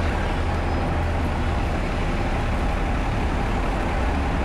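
City buses idling with a steady low rumble over general street traffic noise.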